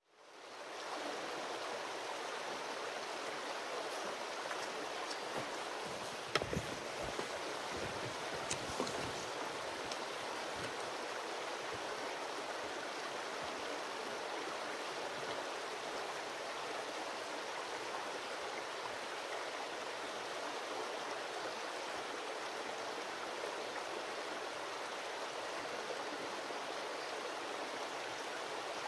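Stream running steadily over rocks, an even rush of water that fades in at the start. Two brief knocks a few seconds in.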